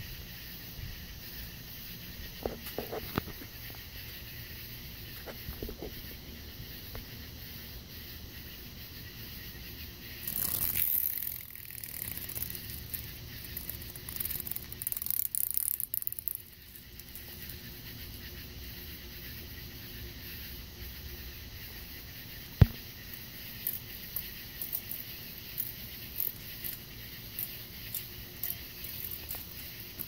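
Steady night-time insect chorus, a thin, even high-pitched trill. Over it come two louder stretches of rustling noise about a third and half way through, a single sharp knock about two-thirds through, and light scattered ticks near the end.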